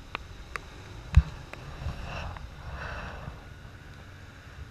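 Off-road vehicle engine running low and steady, with wind on the microphone, a few light clicks and one sharp knock about a second in.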